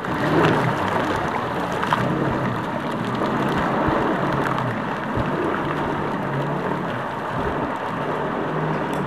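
Jet ski engine running with a wavering hum as it heads off across the water, with a steady rush of water and spray.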